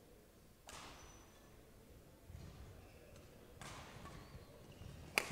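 Badminton rackets striking the shuttlecock in a rally: three hits, about a second in, past halfway and near the end, the last one the sharpest and loudest, each followed by a short ring of hall echo.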